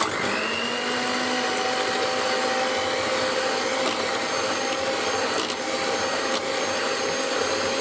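Electric hand mixer switching on and running steadily, a motor whine with the whisk beaters whipping cream and powdered sugar in a stainless steel bowl. The pitch rises briefly as the motor spins up at the start, and a few light clicks come in the middle.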